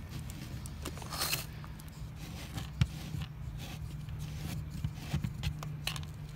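Small scrapes and clicks as a hand grips and works the gravel-strewn plastic lid of a worm bin, with a low steady hum underneath.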